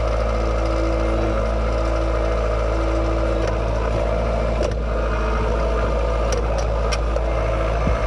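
Kubota compact tractor's diesel engine running steadily close by, a low even drone, with a few faint clicks over it.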